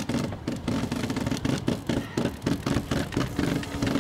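Genoa sheet winch being ground, its ratchet clicking in quick, irregular runs as the sheet is tensioned and the genoa car slides back along its track. A steady low hum runs beneath.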